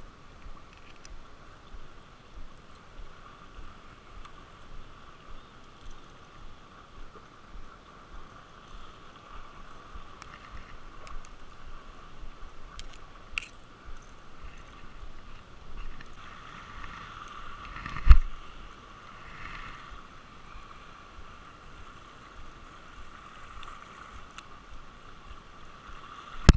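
Small waves lapping against a rocky lakeshore, with light clicks from handling fishing tackle and one loud thump about two-thirds of the way through.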